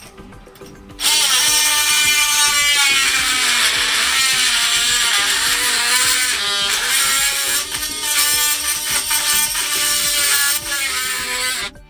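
Ryobi 18V cordless saw blade cutting into an iron bolt anchored in the concrete floor, a loud screeching whine that wavers in pitch. It starts about a second in and cuts off abruptly near the end. The blade is already missing teeth and struggling with the metal.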